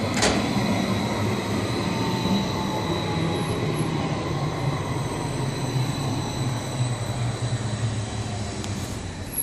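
A CAF Urbos 3 electric tram running past at close range: the steady rumble of its wheels on the rails under a high, steady whine. There is a sharp click just after the start and a faint tone sliding down in pitch a couple of seconds in.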